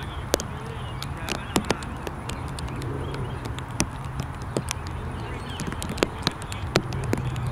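Faint, distant voices of players talking on an open cricket field, over a steady low rumble, with scattered sharp clicks at irregular moments.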